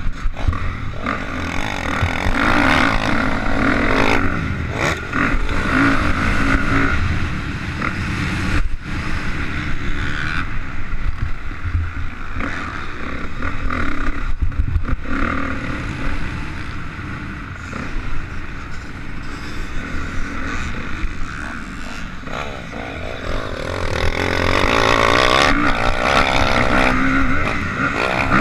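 Dirt bike engine revving up and down through the gears on a motocross track, heard from a helmet-mounted camera with wind buffeting the microphone.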